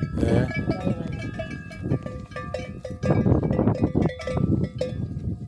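Cowbells clanking irregularly on cattle, several bells ringing at different pitches over a low shuffling background.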